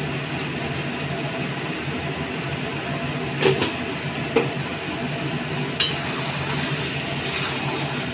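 Chicken and masala cooking in a kadai over a high gas flame: a steady hiss and low hum, with a few sharp clinks of metal against the pan.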